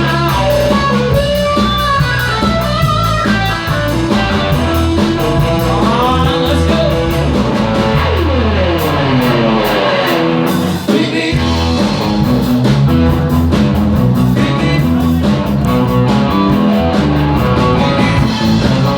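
Live band playing an up-tempo rock-and-roll number led by electric guitar, with a long falling sweep in pitch about six to ten seconds in.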